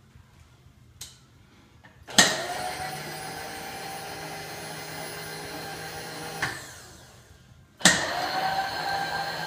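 Electric table power feed on a Webb knee mill driving the table: a click, then the motor whirs up and runs steadily for about four seconds, stops with a click, and about a second and a half later starts again, running the table back the other way. The power feed is a freshly replaced unit that the owner says is working well.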